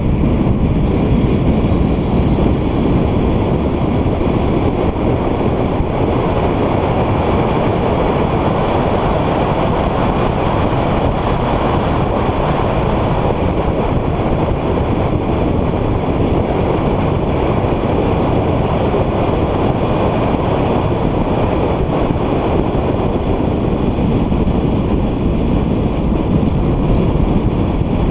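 Car at speed on a racetrack, heard from inside the cabin: a loud, steady rush of engine, tyre and wind noise.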